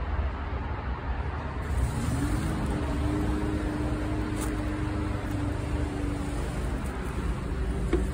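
Engine noise: a steady low rumble, with a motor drone that rises in pitch about two seconds in, holds steady and drops away a few seconds later.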